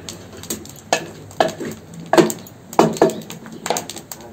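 Spoon stirring meat sautéing in a metal pot, knocking and scraping against the pot's sides: about five sharp clanks over four seconds.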